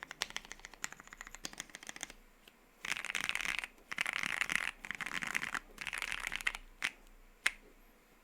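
Typing on a gasket-mount Voice65 mechanical keyboard with lubed 65 g Lavender switches on a polycarbonate plate and PBT keycaps. Fast typing for about two seconds, then four short, dense flurries of keystrokes, then two single key presses near the end.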